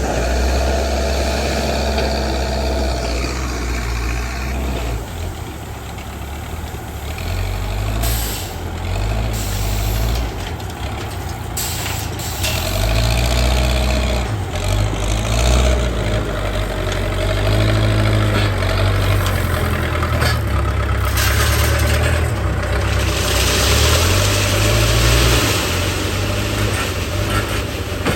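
Backhoe loader's diesel engine running, its revs rising and falling as it works. Short hissing bursts come a third and nearly halfway in, and a longer hiss comes near the end.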